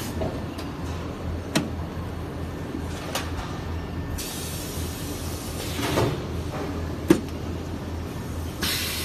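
Hydraulic hot-press machine for shoe uppers running: a steady low motor hum with four sharp clicks and knocks, and hissing that comes in twice, near the middle and near the end.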